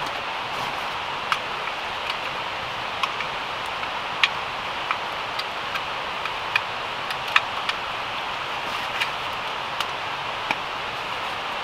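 Light, irregular clicks and taps of small metal parts as a portable camping gas stove is unpacked and fitted together by hand, over a steady background hiss.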